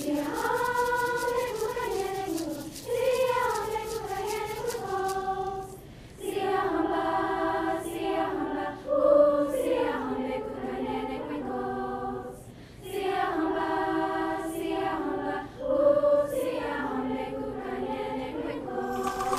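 A student choir singing in phrases separated by short breaths, with quick high ticks of a shaken percussion through the first few seconds.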